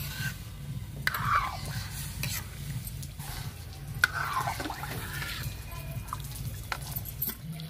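Buttermilk being poured from a clay handi into an iron kadhai and stirred: liquid splashing and dripping, with two louder swells about a second and four seconds in, over a steady low hum.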